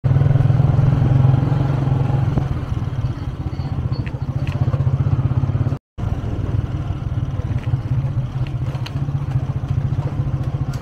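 Motorcycle engine running steadily at low speed, heard from the rider's seat, with a brief cut to silence about halfway through.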